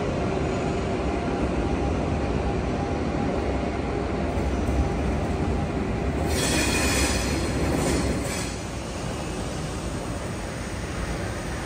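Train in a large station hall: a steady low rumble, with a brief high metallic squeal of wheels on rails about six seconds in that lasts about two seconds.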